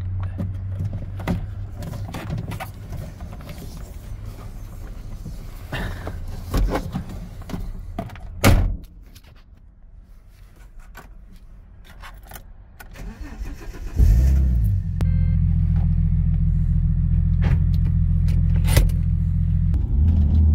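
Car engine starting about fourteen seconds in, then running steadily. Before that, a low hum with scattered clicks and knocks, the loudest a sharp thump about eight and a half seconds in.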